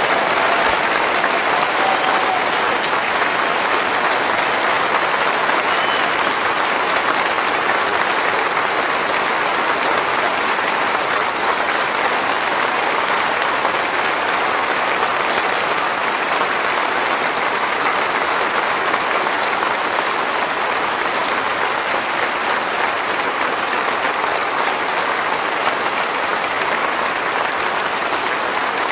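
Congregation applauding steadily in a large, reverberant church, a long continuous ovation that eases slightly in loudness toward the end.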